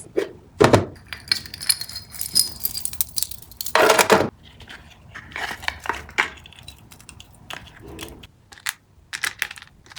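Small items and their plastic packaging being handled: rustling and crinkling with light clicks and clinks, and a louder crinkle about four seconds in.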